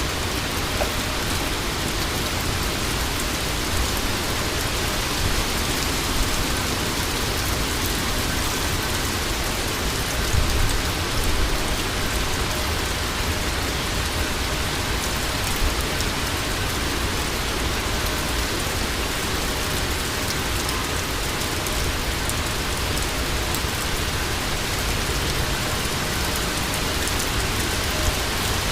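Heavy, wind-driven thunderstorm rain pouring steadily, with the low rumble of wind buffeting the microphone, a little stronger about ten seconds in.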